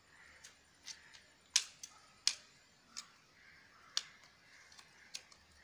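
Thin transparent plastic sheet clicking and crackling in the fingers while a cotton wick is pushed through a hole in its centre: a string of irregular sharp clicks, the loudest about a second and a half in.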